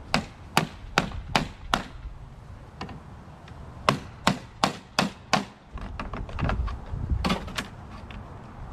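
Sharp striking knocks in three quick runs, five, then five, then two, at about two to three blows a second: knocking at a stuck bolt on a lawnmower's battery tray to free it.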